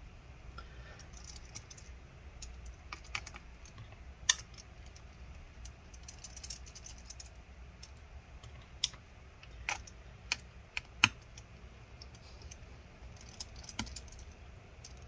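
Light, scattered clicks and ticks of a precision Torx T5 screwdriver and tiny screws being worked out of a MacBook Air's aluminium trackpad bracket, with one sharper click about four seconds in and a run of them between nine and eleven seconds.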